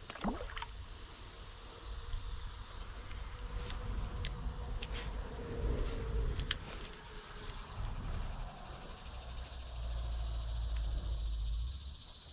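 Insects chirring steadily, with a few sharp clicks and a low rumble that grows stronger near the end.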